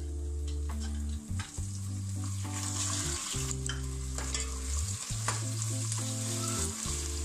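Onions and garlic-ginger paste sizzling in hot oil in a steel pot. A steel ladle scrapes and stirs through them. Under it, background music with low sustained bass notes that change every second or so.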